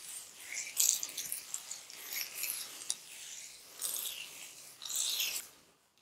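Fingers working through damp hair coated in curl-activator cream, raking and twisting a section: a series of rustling, rubbing strokes that stop shortly before the end.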